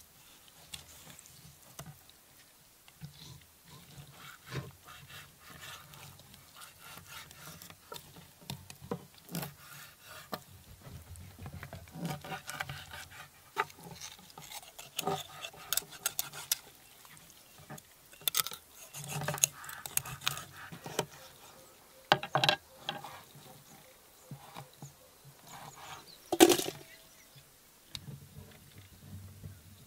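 Kitchen knife cutting murrel fish on a wooden cutting board: irregular knocks of the blade on the board with scraping and slicing between them. One sharp knock with a brief ring near the end is the loudest.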